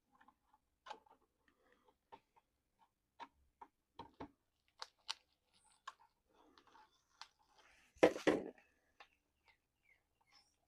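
Light clicks and taps of small plastic parts being handled and fitted on a model RC truck, irregular and spaced out, with one louder clatter and rustle about eight seconds in.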